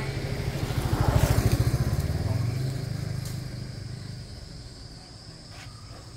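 A small motorbike engine passing by: its pulsing engine note swells to a peak about a second in, then fades away over the next few seconds.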